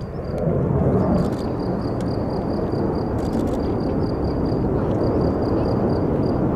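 Jet noise from an F-35A's single Pratt & Whitney F135 turbofan as the fighter flies past: a deep rumble that swells about half a second in and then stays loud and steady.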